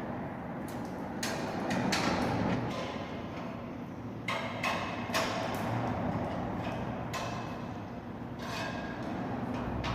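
A series of irregular knocks and clatters, about half a dozen, over a steady background noise.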